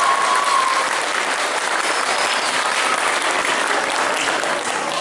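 Audience in a hall applauding at the end of a children's song, with the song's last held note fading out about a second in.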